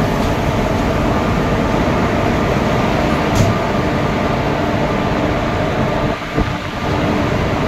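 Indian Railways electric locomotive's machinery running with a loud, steady, even whirr, heard from right beside the loco.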